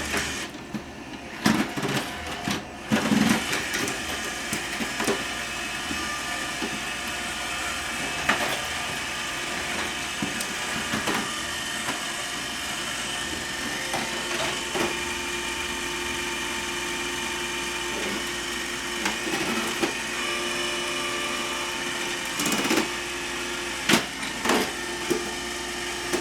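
iRobot Roomba robot vacuum running with a steady motor whine, with a few short knocks scattered through it as it moves about.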